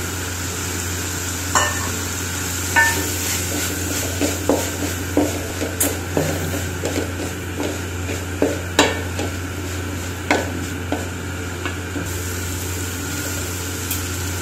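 A wooden spatula stirring and scraping food around an aluminium pan, with irregular short knocks against the pan from about a second and a half in until near the end, over a steady background hum.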